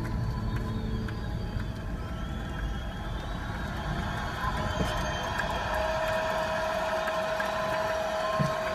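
Car cabin noise at low speed: the engine running and tyres rolling on snow, as an even hum and rush, with a faint steady tone in the last few seconds.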